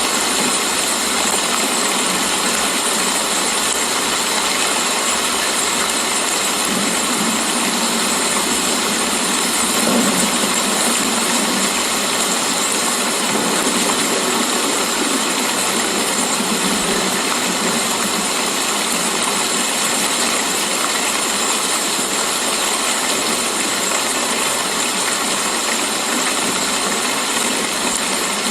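Steady rain falling, an even hiss with a brief swell about ten seconds in.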